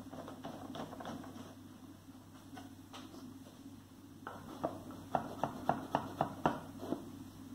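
Wooden parts of a 3D wooden puzzle box clicking as its drawer is pushed shut and the mechanism is locked again. Light wooden clicks and handling rattles at first, then from about four seconds in a run of about eight sharp wooden clicks, roughly four a second.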